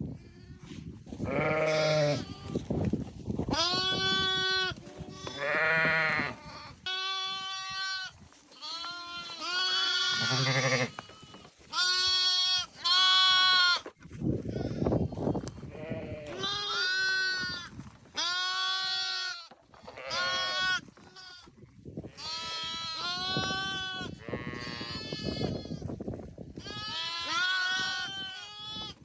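A flock of ewes and lambs bleating, many calls one after another and sometimes overlapping, some higher-pitched and some lower.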